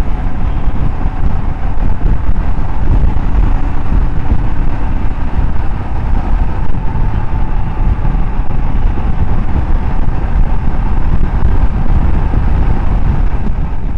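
A motorcycle engine running steadily on the move, loud, under a heavy low rumble.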